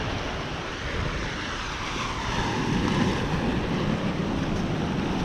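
Ocean surf washing against a rock breakwater, a steady rush of water, with wind buffeting the microphone.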